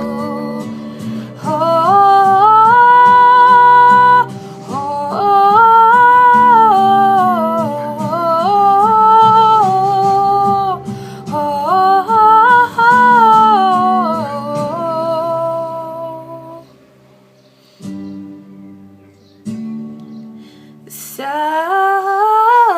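Wordless sung melody, hummed by a female voice, over acoustic guitar chords. The voice drops out about two-thirds of the way through, leaving soft guitar, and comes back with a rising note near the end.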